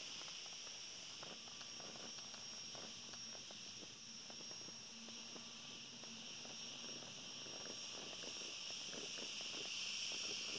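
Night insect chorus: a steady high-pitched trill in two bands, with faint irregular crackles and clicks throughout.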